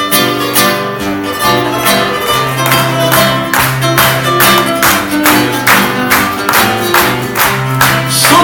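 Acoustic guitar strumming an instrumental passage of a Uruguayan folk song: chords struck in a steady rhythm of about three strokes a second over held bass notes, with no singing.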